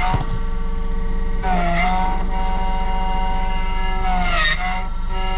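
A small electric machine running with a steady whine that dips in pitch about a second and a half in and glides again near the end. A vehicle engine idles underneath.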